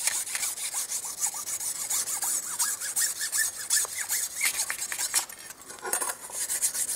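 Cuttlefish bone rubbed back and forth along a polished stainless steel knife blade in quick scraping strokes, scrubbing off leftover buffing compound.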